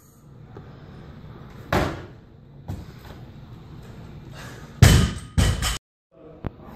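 Loaded barbell with bumper plates dropped from overhead onto a rubber gym floor after a clean and jerk, landing with a loud bang and bouncing twice. Earlier, about two seconds in, a single thud as the bar is driven overhead in the jerk.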